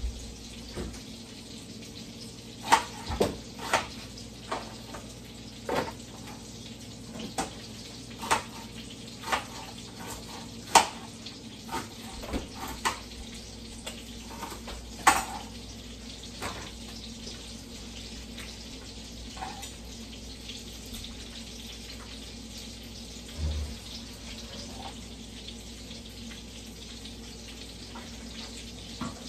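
Kitchen knife chopping onion on a cutting board: irregular sharp taps, most of them in the first half, thinning out later. Underneath, a steady sizzle of sausage frying gently in a skillet.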